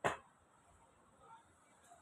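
A single sharp knock at the very start, dying away within a moment, then faint background noise.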